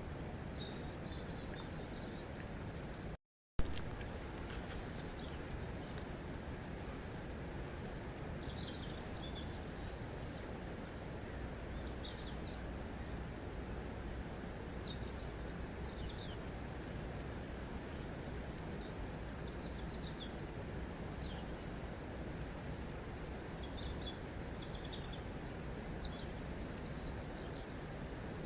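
Steady rush of flowing water with small birds chirping in many short calls above it. About three seconds in, the sound cuts out for a moment and comes back with a sharp click.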